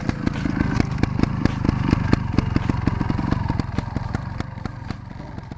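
Two-stroke trials motorcycle engine running at low revs, with a rapid, irregular popping and clatter, fading away near the end.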